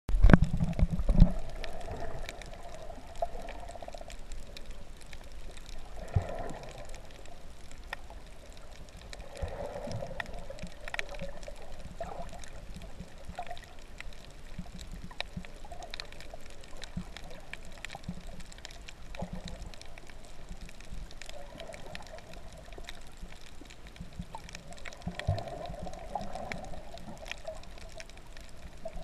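Muffled underwater sound heard through a camera's waterproof housing: a steady water rush that swells every few seconds, with scattered faint clicks. A few loud knocks come in the first second or so.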